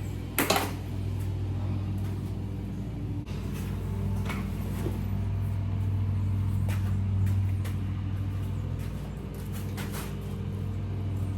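Pliers clinking against a stuck, broken lifter in an engine block's lifter bore as it is worked loose: a few sharp metal clicks, the loudest about half a second in. A steady low hum runs underneath.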